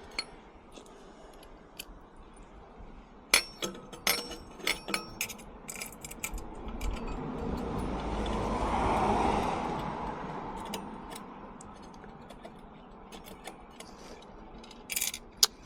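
Small metal clinks and taps of hand tools and exhaust baffle parts being handled, with a cluster of clicks a few seconds in. A rushing noise swells and fades over several seconds in the middle.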